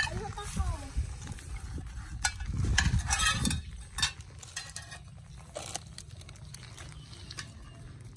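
Puppies eating from stainless steel food trays: chewing and lapping, with scattered clinks and scrapes of the metal trays, busiest about three seconds in.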